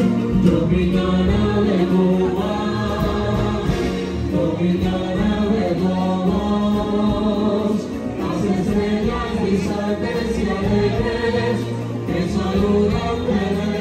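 Music with a group of voices singing together, loud and continuous.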